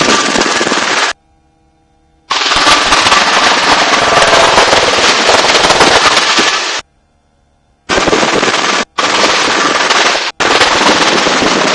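Loud, dense helicopter rotor and wind noise in low-level flight with the doors open. It cuts out abruptly to near silence twice, for about a second each, and briefly twice more.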